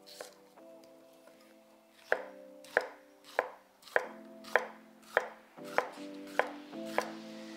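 A kitchen knife chopping celery on an Asahi synthetic rubber cutting board: crisp knocks of the blade striking the board, sparse for the first two seconds, then a steady one about every 0.6 seconds.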